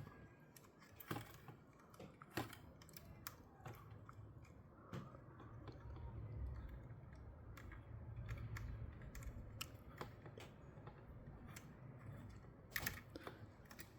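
Faint, scattered clicks and taps of small drone parts being handled and fitted by hand, over a low steady hum.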